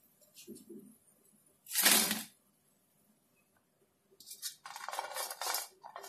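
Crisp fried potato pakodas set down on a steel plate: light clinks, a sharp clatter about two seconds in, and a second of rattling against the metal near the end.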